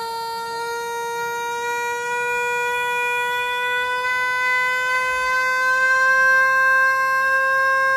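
Electronic tone from a loudspeaker driven by a signal generator, sounding inside a Kundt's tube to set up standing waves in the air column. The tone is steady with overtones, slides slowly upward in pitch, and grows a little louder.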